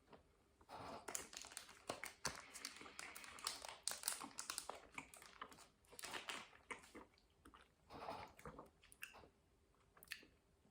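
A person biting and chewing a chocolate brownie crunch protein bar, with a crackly, crunchy chewing sound. The chewing is busiest for the first nine seconds or so, then dies down to a few faint clicks.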